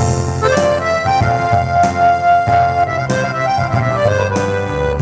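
Instrumental break in an unplugged song: a free-reed keyboard instrument plays a melody of held notes that step from pitch to pitch over steady bass notes. Light percussive strikes accompany it.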